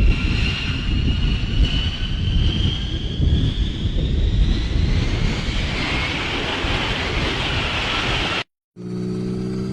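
F-35B Lightning II jet engine at high power during a vertical landing: a heavy roar with a high whine that slowly rises in pitch. Near the end the sound cuts off abruptly, and a steady low hum of several even tones follows.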